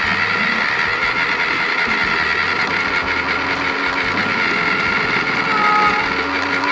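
Small electric motors and plastic gearboxes of Rokenbok remote-control toy vehicles whirring steadily as they drive, with a brief higher-pitched squeak near the end.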